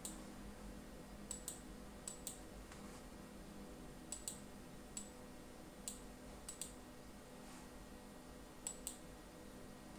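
Computer mouse button clicks: a dozen or so sharp clicks at irregular intervals, several in quick pairs, over a faint steady hum.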